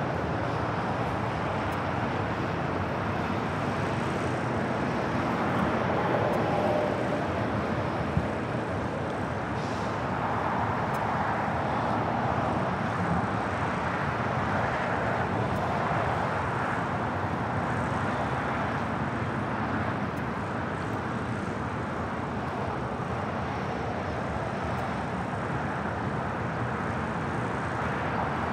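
Steady outdoor roar of airport and road traffic, with distant jet aircraft engines. A single brief sharp click about eight seconds in.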